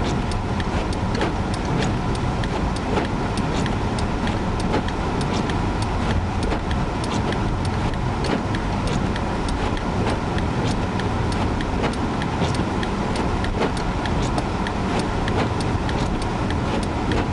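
Steady road and engine rumble heard from inside a car driving on a snow-covered road in a blizzard, with many small sharp ticks scattered throughout.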